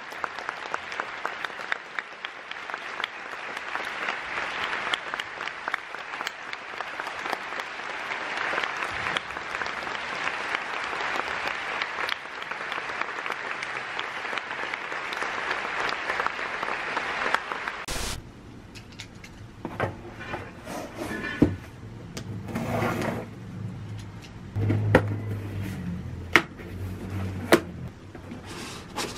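Theatre audience applauding steadily at a curtain call. About eighteen seconds in the applause cuts off, and a cardboard box is handled and opened, with scattered knocks, clicks and rustles.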